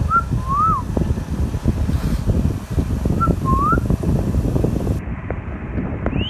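Indian ringneck parrot whistling: two short whistled phrases, each a brief note followed by a longer note that rises and falls, then a higher rising whistle near the end, over a steady low rumble.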